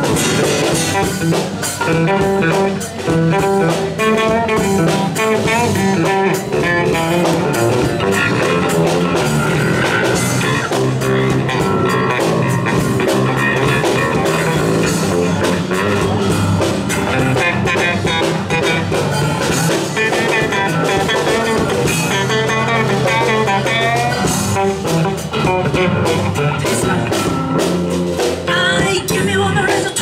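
Live band jamming an improvised groove: electric bass guitar and drum kit playing together, with guitar over them.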